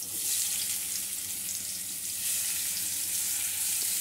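Whole peeled pointed gourds (potol) frying in hot mustard oil in a kadai: a steady sizzle.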